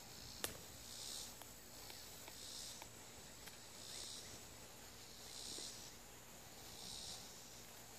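Schrade folding shovel digging into gravelly, rocky dirt: faint scraping, and the blade clinking sharply against a stone about half a second in, followed by smaller ticks. A high rasping hiss repeats about every second and a half throughout.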